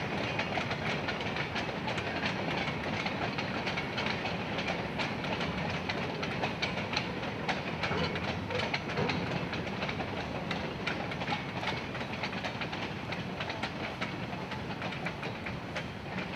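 Freight train cars rolling past, their wheels clicking steadily over the rail joints. The sound grows slightly fainter toward the end as the tail of the train moves away.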